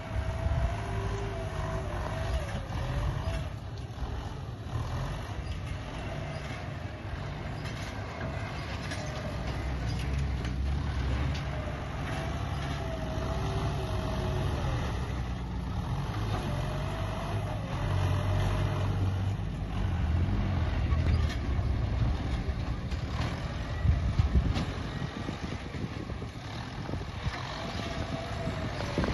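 Excavator's diesel engine running steadily, with a whine that wavers up and down and returns every few seconds as the machine works.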